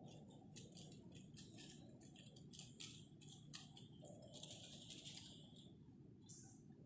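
3x3 puzzle cube being turned quickly in the hands: soft, irregular clicking and clacking of the layers, several turns a second.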